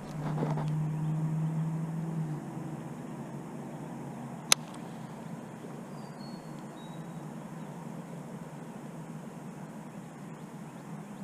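A steady low hum, louder for the first two seconds, with a single sharp click about four and a half seconds in and a few faint high chirps later on.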